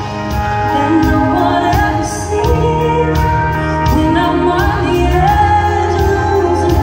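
Live band playing with a woman singing lead into a microphone, over a steady beat.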